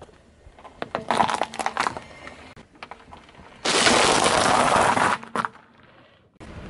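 Car tyre rolling over small orange candies, a scatter of sharp cracks and snaps. About three and a half seconds in, a loud dense crunching for about a second and a half as the tyre crushes a plastic bag of dry penne pasta.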